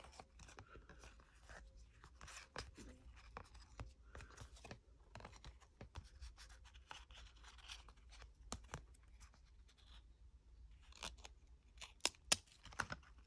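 Trading cards being flipped through by hand: faint sliding and rubbing of card stock with light clicks as each card is moved along the stack, and a few sharper snaps near the end.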